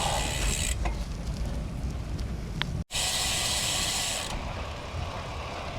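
Road bike's rear freehub ticking as the bike coasts, over steady wind and road noise; the sound cuts out for an instant about halfway through.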